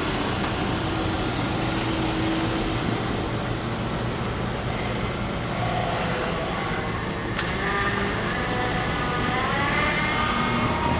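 Motor vehicles running, a steady engine and traffic noise with a low hum, with faint wavering tones in the second half.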